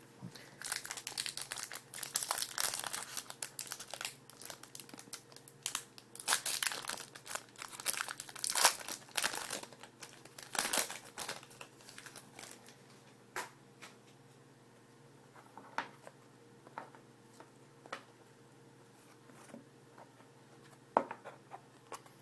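Trading card pack wrappers being torn open and crumpled by hand, a dense crinkling and tearing for about the first half, then only occasional light crinkles.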